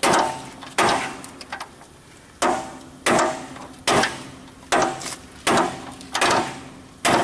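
Hammer blows pounding a seized bolt out of a 1964 Corvette's rear suspension, about nine steady strikes, each ringing briefly. The bolt is starting to give and move.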